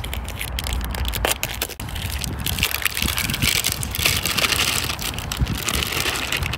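Clear plastic bag of ground beef crinkling and rustling as it is handled and tipped into a stainless steel bowl, with a low wind rumble on the microphone.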